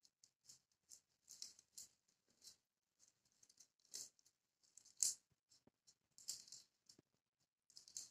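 Faint, irregular rustling and light clicks from gloved hands handling a patient's wrist and sleeve, with one sharper click about five seconds in.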